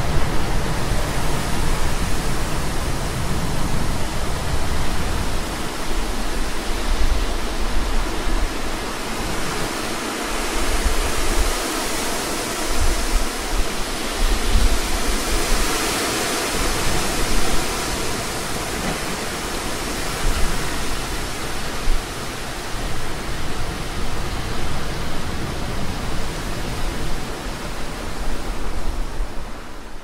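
Moderate wind blowing through trees and bushes: a steady rushing of leaves and branches that swells and eases in gusts, strongest about halfway through.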